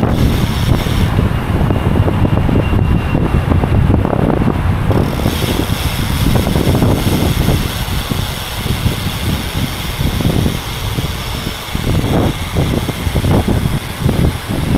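Wind buffeting the microphone of a camera on a bicycle riding at speed, with the rush of tyres on the road.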